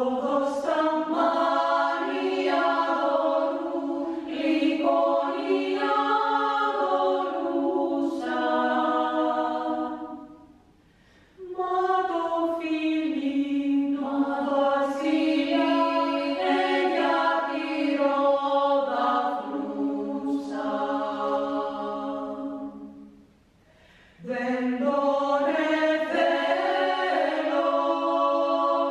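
Women's choir of about ten voices singing a cappella in parts. The song comes in three long phrases, with short pauses about ten seconds in and again about twenty-three seconds in.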